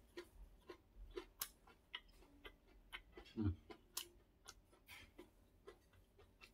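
Close-up crunching of a crispy fried potato hash brown being chewed with the mouth closed: short sharp crunches about two a second, with a single low thud about halfway through.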